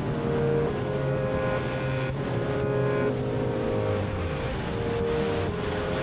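Outboard motor of a bass boat running steadily under way.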